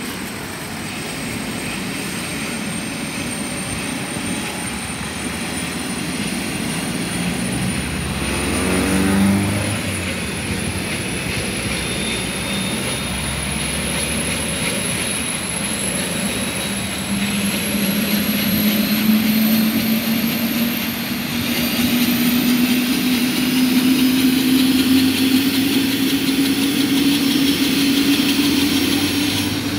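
Helicopter turbine running, its high whine and a lower hum both rising slowly and steadily in pitch and growing louder, as the engine spools up. A brief louder swell about nine seconds in.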